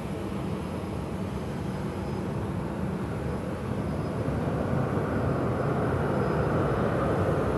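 Airport ambience: a steady low rumble of distant jet aircraft engines that grows somewhat louder about halfway through.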